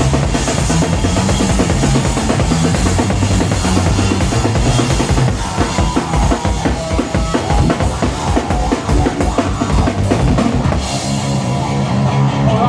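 Loud live noise-rock played by a drums-and-bass duo: very fast, dense drumming on a full kit over a heavily distorted bass guitar holding low, droning notes. Near the end the drums drop out and the bass riff carries on alone.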